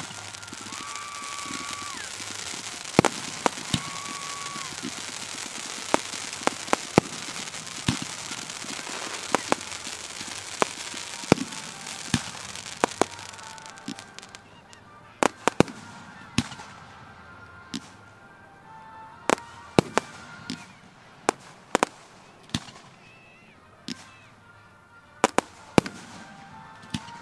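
Fireworks display: a long irregular string of sharp bangs from bursting shells over a steady rushing hiss. The hiss dies away about halfway through while the bangs carry on. Two brief whistle-like tones sound in the first few seconds.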